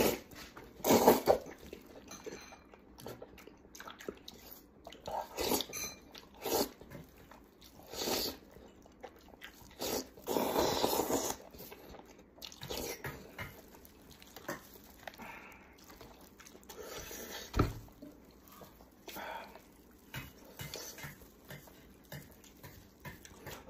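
Close-up eating sounds from a cooked sheep's head: wet chewing, slurping and sucking as meat is torn from the bones and eaten. The sounds come in irregular bursts, with a single sharp knock partway through.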